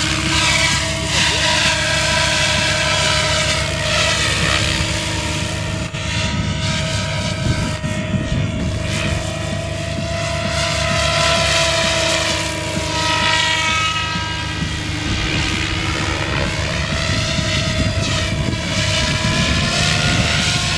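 SAB Goblin 630 electric RC helicopter flying 3D aerobatics. The motor and tail rotor whine steadily while the rotor blades swish, and the pitch and loudness rise and fall in repeated swells as it manoeuvres.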